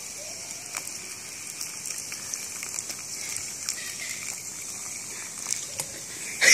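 Coca-Cola pouring from a plastic bottle into a small plastic box, the soda foaming up with a steady fizzing hiss and faint crackles.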